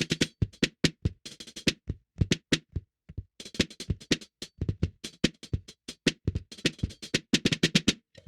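Drum kit played messily, rapid uneven hits mixing low thuds with bright strikes in dense clusters and short pauses, picked up by a single AT2020 condenser microphone.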